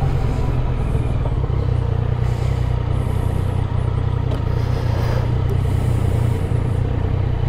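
A Yamaha Tracer 900 GT's three-cylinder engine running steadily while the bike is ridden, still on its stock exhaust, with road and wind noise.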